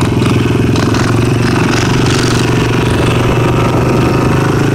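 Small off-road vehicle engine running at a steady idle, close by, with little change in pitch.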